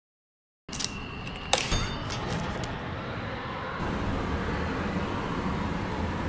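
Silence for under a second, then a couple of sharp clicks and a brief high whine, followed by the steady rushing noise of a jet engine that grows louder about four seconds in.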